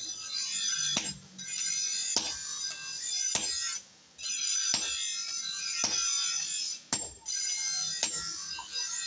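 Sledgehammer blows on red-hot steel on an anvil, about one a second, each with a bright metallic ring, as a truck shaft is forged into a chisel.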